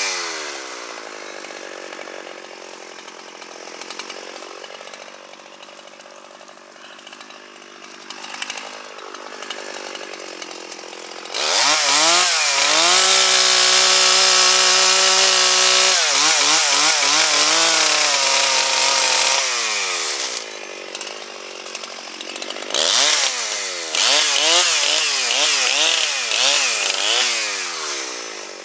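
Two-stroke chainsaw engine. It winds down and runs slow and quieter for about ten seconds, then revs up about eleven seconds in and holds high speed for several seconds. After that it revs up and down repeatedly to the end.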